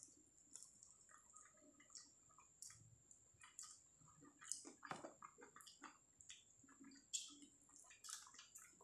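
Faint wet mouth sounds of a man eating fried chicken: irregular chewing smacks and the sucking and licking of his fingers.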